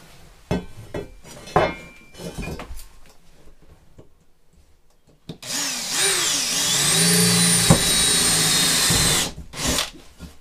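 A handheld power drill boring into a steel frame rail, running for about four seconds with its motor whine dipping and rising under load before it stops. Earlier, clinks and knocks as the metal frame is handled.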